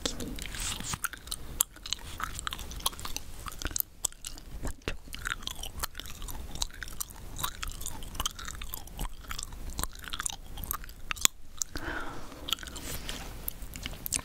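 Chewing gum being chewed close to the microphone, a string of irregular clicks and smacks from the mouth.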